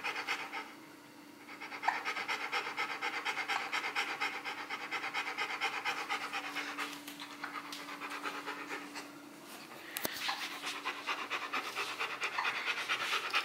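A Rottweiler panting in quick, even breaths, pausing briefly about a second in and again about nine seconds in.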